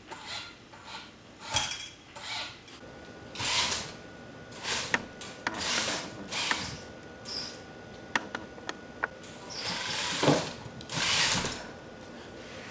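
A FIRST Tech Challenge robot's electric drive motors and gearing whining in repeated short bursts as it is driven back and forth, with a few sharp clicks and knocks in between.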